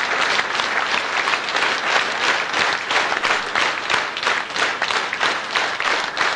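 Audience applauding a man being welcomed onto a stage; the clapping settles into a rhythmic clap in unison, about three claps a second, in the second half.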